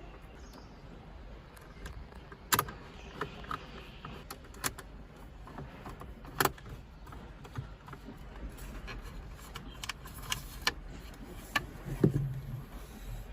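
Scattered sharp clicks and taps of a plastic frame stand and metal stand being handled and fastened together with screws. The louder knocks come at irregular intervals, a few seconds apart, with light ticks between.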